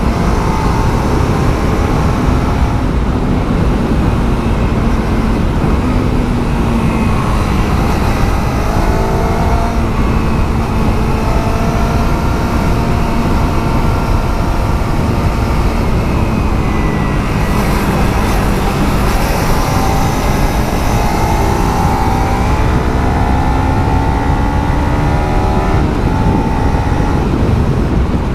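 Kawasaki Z300 parallel-twin engine through its stock exhaust, heard onboard while riding, its pitch rising and falling again and again as the bike accelerates, shifts and slows, over a dense low rumble.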